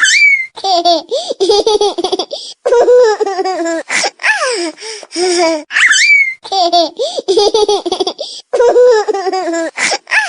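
A funny laughter ringtone: high-pitched laughter in short bursts, played as a loop. The loop repeats about every six seconds, and each pass opens with a quick rising squeal.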